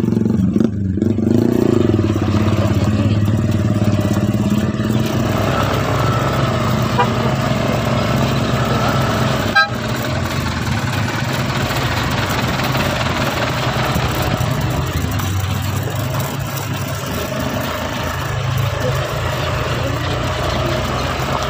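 Motorcycle engine running steadily under riding, with road and wind noise on the microphone. There is a short click about ten seconds in.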